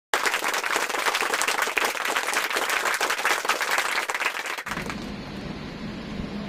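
Crowd applauding: dense, fast clapping that cuts off suddenly after about four and a half seconds. A steady low background hum follows.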